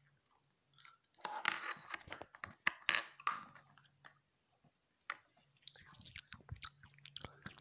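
Crinkling of clear plastic wrapping and light clicks and knocks as a small plastic puppy figure is handled on a table, in several short irregular bouts.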